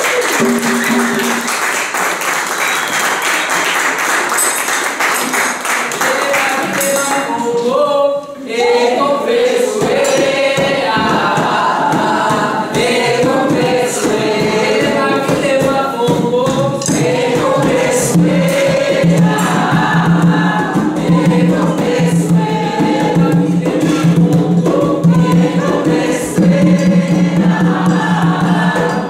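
A group sings an Afro-Brazilian candomblé song for the Orixás in chorus over hand drums (atabaques and djembes). About eight seconds in there is a short break, then the singing comes in strongly and carries on over the drumming.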